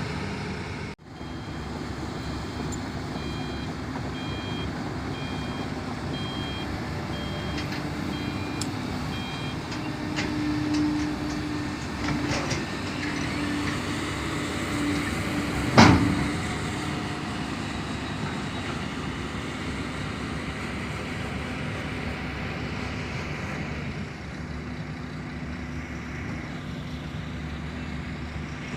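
Heavy diesel machinery running steadily. For the first nine seconds or so an alarm beeps in short repeated pulses, typical of a travel or reversing alarm. A single loud clank comes about sixteen seconds in.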